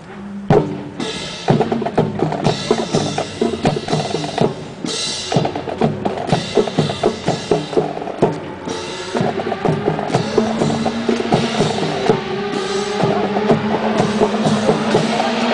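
Drum-led music starts abruptly about half a second in, with rapid snare and bass-drum strokes. Held notes join in from about ten seconds.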